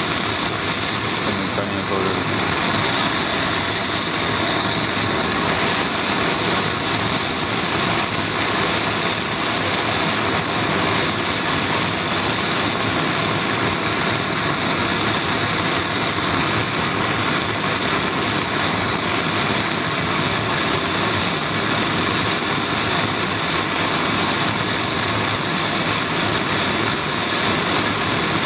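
Gas torch flame hissing steadily, heating a copper capillary joint for silver brazing.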